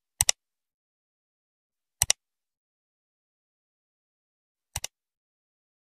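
Three double-clicks of a computer mouse click sound effect, the kind laid over a subscribe-button and notification-bell animation, each pair a quick click-click, with dead silence between them.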